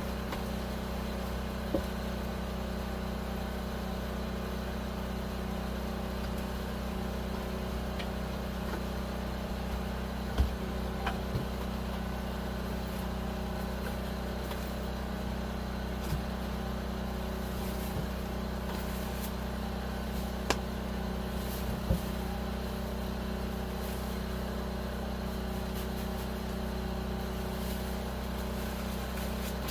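A steady low motor hum, with a few short knocks and clicks scattered through it, the loudest about ten seconds in and again around twenty and twenty-two seconds.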